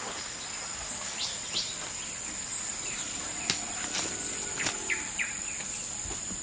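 Jungle ambience: a steady high-pitched insect drone, with short bird chirps a few times and a few sharp snaps around the middle.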